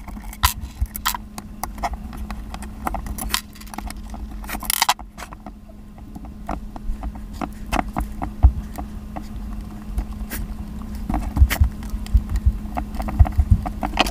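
Sped-up clicks and metallic clinks of a screwdriver, screws and a motor casing being handled as a fan motor's end-plate screws and capacitor are taken off, irregular and quick, over a faint steady hum.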